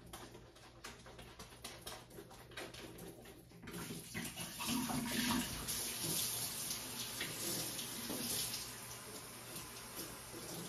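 Kitchen tap turned on about four seconds in, water running into the sink and a plastic SodaStream bottle as it is rinsed of dish soap. Before that, only faint clicks and knocks of handling.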